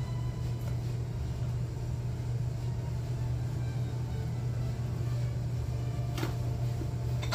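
A steady low rumbling hum, with a faint click about six seconds in and a sharp knock at the very end.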